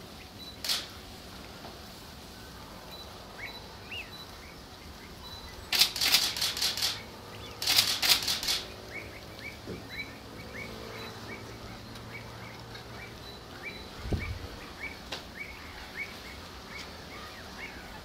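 Marsh birds calling: a steady run of short, high, falling chirps, about three a second in the second half. Two loud bursts of rapid clicks come about six and eight seconds in.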